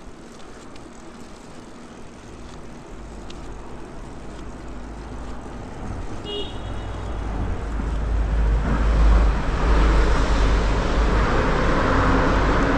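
Rumbling road-traffic noise in a road tunnel, swelling steadily over about nine seconds and then staying loud.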